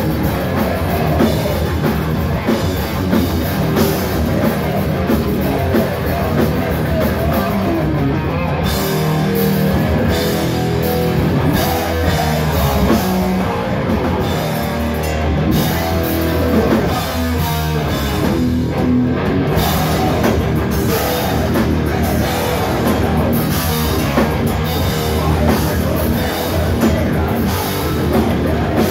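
Heavy metal band playing live at full volume: distorted electric guitars, bass and a hard-hit drum kit. The cymbals drop out briefly twice, about 9 and 19 seconds in.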